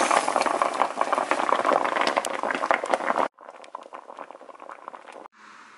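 Gochujang broth with rice cakes at a hard boil in a frying pan: a loud, dense bubbling crackle. About three seconds in it cuts off abruptly and comes back quieter, then cuts again near the end to a faint steady simmer.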